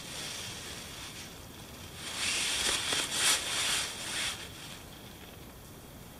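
Hammock fabric and bug net rustling as a person shifts position inside the hammock, louder from about two seconds in and dying away about four and a half seconds in.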